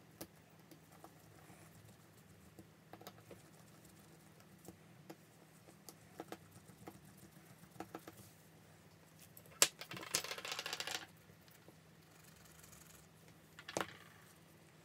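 Faint small clicks and taps of metal tweezers and tiny phone parts being handled on a silicone mat. About two-thirds of the way through a sharp click is followed by about a second of rapid scratchy rattling, and a last click comes near the end as tools are set down.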